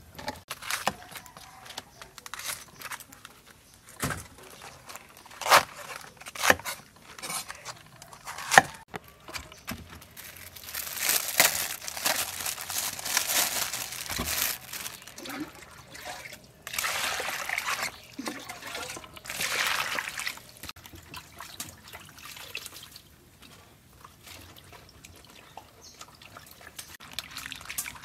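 Water splashing and sloshing in a plastic basin as vegetables and napa cabbage leaves are put in and washed by hand. Sharp clicks and knocks come first, then longer bursts of splashing about ten seconds in and twice more later.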